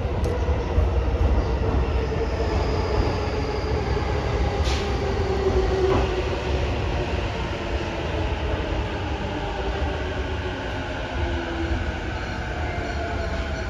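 JR East E231 series electric commuter train running on the rails: a steady low rumble under a slowly falling whine, with a sharp click about five seconds in and a fainter one a second later.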